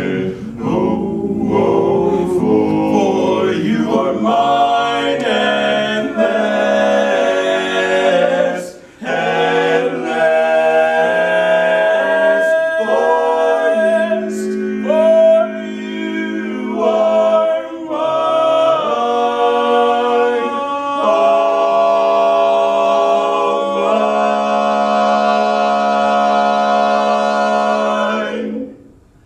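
Four-man a cappella quartet singing in close harmony, with long held chords. There is a brief break about nine seconds in, and the singing stops just before the end.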